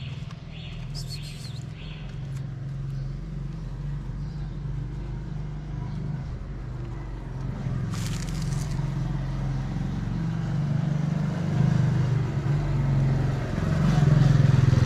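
A cat purring: a steady low rumble that grows louder near the end as the cat is stroked.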